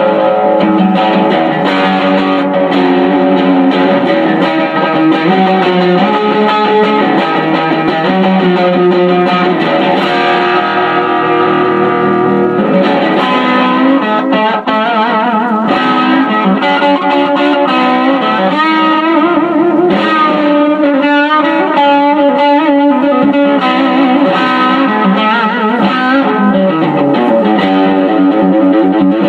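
Electric guitar (a P90-equipped Les Paul Junior) played as a distorted lead through a 1970s Unicord solid-state amplifier run wide open, the amp distorting on its own, with a delay pedal. Several held notes in the middle waver with vibrato.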